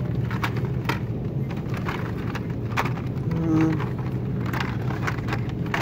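Plastic blister-pack toy cards clicking and rattling as they are flipped through on metal display pegs, a sharp click every second or so, over a steady low background hum.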